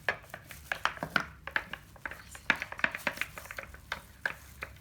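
Homemade glitter slime mixture being stirred, making irregular sticky clicks and squelches several times a second; the mixture has not yet set into slime.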